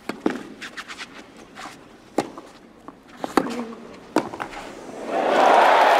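Tennis ball struck by rackets four times in a clay-court rally, the hits coming closer together, then a crowd breaking into loud cheering and applause about five seconds in as the point ends.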